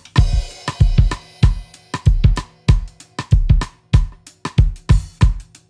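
Background music with a steady drum-kit beat, kick and snare, and a cymbal crash near the start.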